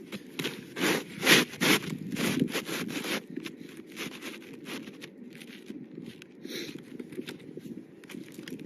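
Asphalt shingles being handled on the roof: irregular rough scraping and crackling strokes, loudest in the first three seconds, then sparser and quieter.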